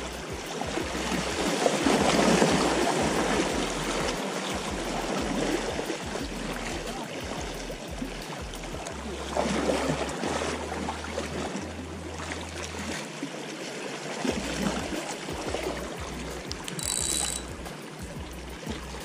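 Small sea waves washing and splashing against the boulders of a rock breakwater, swelling in surges about two, nine and fourteen seconds in. A brief high-pitched tone sounds near the end.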